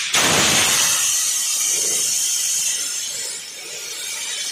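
Loud, steady hiss of compressed air venting from an LHB coach's air brake equipment as its FIBA device is reset by hand. The hiss breaks for a moment at the start, then eases somewhat about three seconds in.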